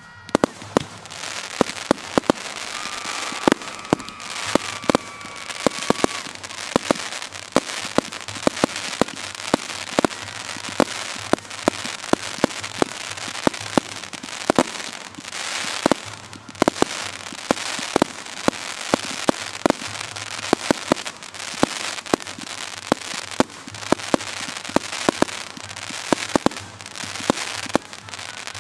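Aerial fireworks shells bursting in rapid succession. Sharp bangs come two or three a second over a continuous wash of noise.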